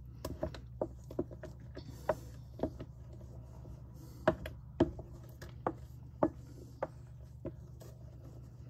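Wooden spoon stirring a thick pie filling in a stainless steel mixing bowl, knocking and scraping against the bowl's side at irregular moments, about fifteen times, over a steady low hum.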